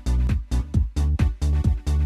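Electronic dance-style background music with a steady thumping beat, about two beats a second.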